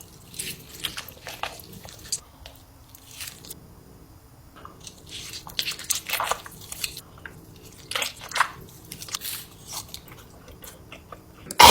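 A person eating spicy ramen noodles close to the microphone: irregular wet chewing and biting sounds, busiest in the middle of the stretch.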